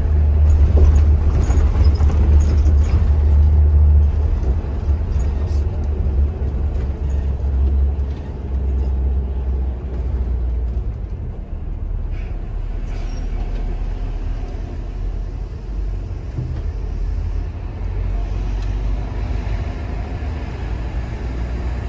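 Shuttle bus running, heard from inside: a steady, deep rumble of engine and road noise. It is loudest for the first few seconds and eases after about eight seconds.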